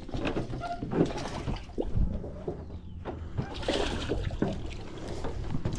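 Water splashing and trickling, with scattered light clicks and knocks, growing brighter and hissier about three and a half seconds in.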